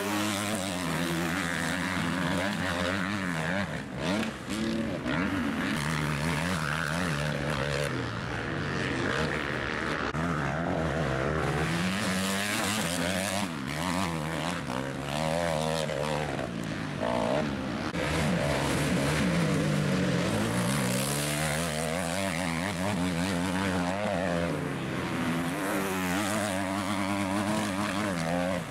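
Motocross dirt bike engine revving hard and backing off over and over, its pitch climbing and dropping with the throttle and gear changes.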